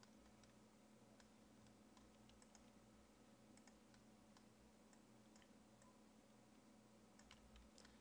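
Near silence: faint, scattered computer mouse clicks and key taps over a low steady hum.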